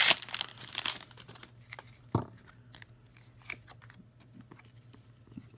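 A Pokémon card booster pack's foil wrapper crinkling and tearing open in the first second, followed by faint rustles and clicks as the cards are handled, with a single knock about two seconds in.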